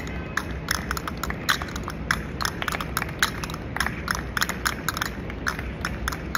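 Flamenco percussion keeping the compás: quick, sharp clicks, roughly five a second in an uneven rhythm, over a steady low background rumble.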